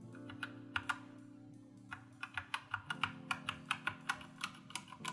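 Keys of a Vortex VX87 mechanical keyboard with linear Outemu Red switches being pressed for an N-key rollover test: a few scattered clacks, then from about two seconds in a quick run of about five keystrokes a second. Guitar background music plays under it.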